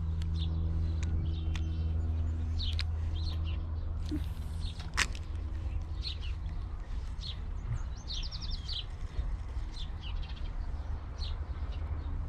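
Songbirds chirping and calling in short notes, with a quick trill about eight seconds in. Underneath runs a low steady drone that fades out about four seconds in, and there is a single sharp click near the middle.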